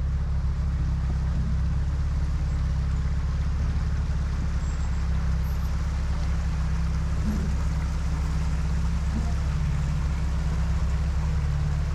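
Off-road 4x4's engine running at low speed with a steady low drone as the vehicle crawls over a rocky creek bed.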